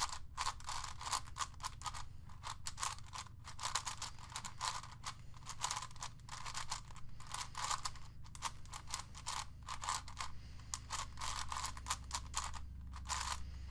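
ShengShou Wind 5x5x5 speed cube being turned by hand: a continuous run of quick, irregular plastic clicks and clacks as its layers rotate. These are the first turns on the brand-new puzzle, straight out of the box.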